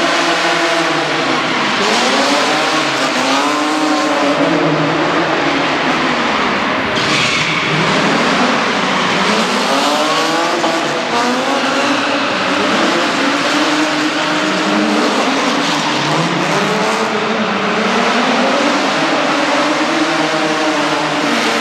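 BMW E36 3 Series rally car engine revving hard while drifting, the revs rising and falling over and over as the throttle is worked. A short tyre squeal comes about a third of the way through.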